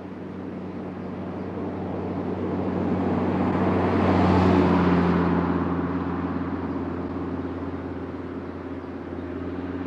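Audi RS3 8V's inline five-cylinder engine running steadily at low revs through its RS exhaust, heard close to the tailpipes. Over it, a rushing noise swells to its loudest about halfway and then fades.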